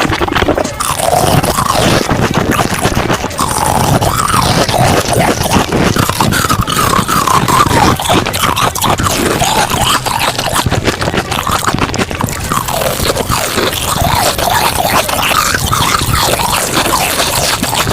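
Close-miked eating sounds, dense crunching and chewing of snack foods, played back sped up.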